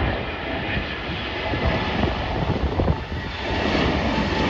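Airbus A321 twin-jet airliner on final approach with its landing gear down, passing low: a steady jet engine rumble and hiss that grows louder toward the end.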